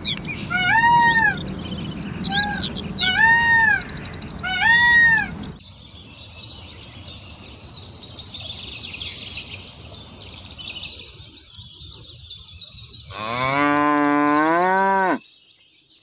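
Indian peafowl calling, a series of loud arching calls over the first five seconds. A quieter stretch with faint high chirping follows, and near the end a cow moos once, a long low call of about two seconds.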